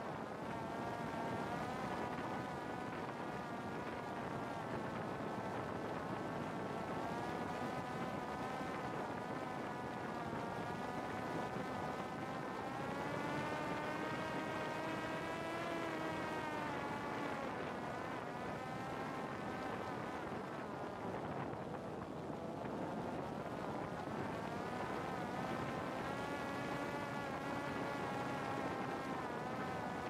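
Parrot Disco fixed-wing drone's electric motor and pusher propeller in flight: a steady buzzing whine whose pitch drifts slowly up and down, rising near the middle, dipping about two-thirds of the way through, then climbing again.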